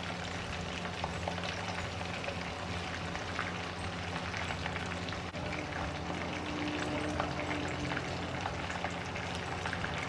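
Braised chicken wings frying in hot oil in a wok, a steady dense sizzle and crackle of bubbling oil as the skins brown and crisp over low heat.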